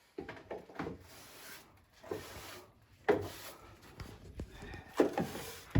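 Rubbing and scraping noises with a few sharp knocks, the loudest about three seconds in and again about five seconds in.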